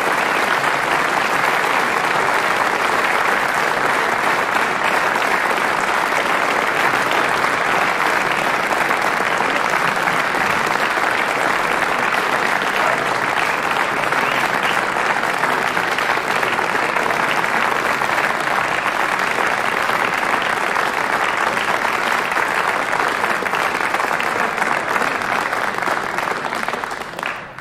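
Concert audience applauding steadily, the applause fading out near the end.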